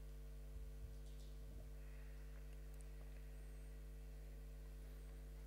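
Steady low electrical hum, with a couple of faint soft bumps about half a second to a second and a half in.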